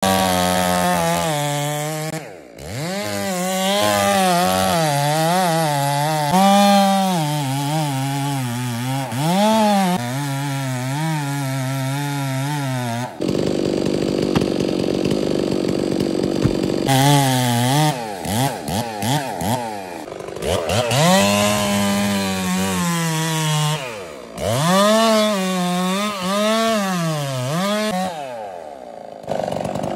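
Two-stroke gasoline chainsaw cutting into the base of a fir trunk, its engine pitch repeatedly dipping under load and rising again as the bar bites and eases. For about four seconds in the middle, the engine note gives way to a steady rushing noise.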